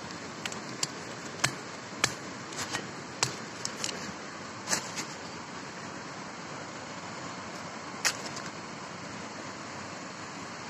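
Sharp irregular cracks and knocks of wild bamboo shoots being chopped and broken open, with dry leaf litter crunching, mostly in the first half and once more near the end, over a steady hiss.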